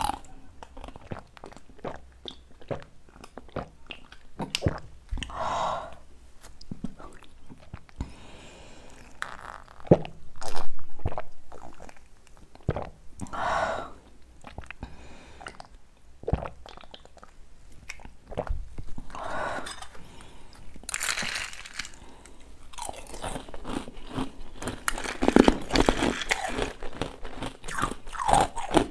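Ice cubes from a purple iced drink being bitten and chewed close to a clip-on microphone: many short sharp crunches throughout, with a few longer sips or gulps of the drink between them.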